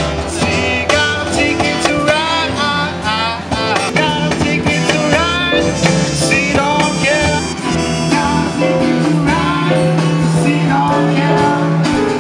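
Live acoustic band playing a song: an electric bass guitar and acoustic guitars, with a male voice singing a melody over them.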